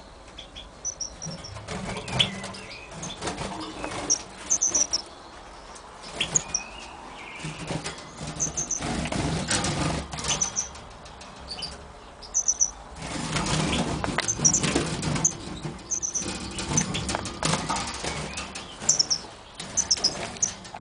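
European goldfinches in a breeding cage: bursts of wing fluttering, the longest about eight to eleven seconds in and again from about thirteen to seventeen seconds in, with short high chirps, often in quick pairs or threes, scattered among them.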